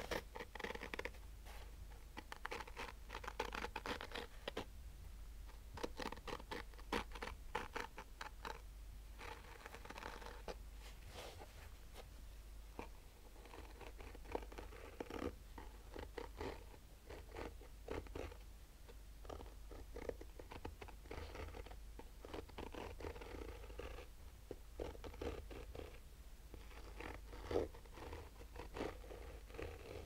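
Fingernails slowly scratching the textured woven fabric of a hard Polaroid sunglasses case. The scratching comes in runs of quick strokes lasting a second or two, with short pauses between them.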